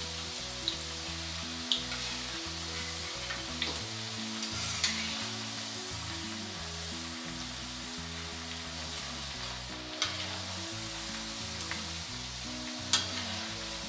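Rings of rice-flour dough deep-frying in hot oil, with a steady sizzle. A few sharp clicks come from the slotted spoon against the wok, the loudest near the end. Soft background music with low held notes plays underneath.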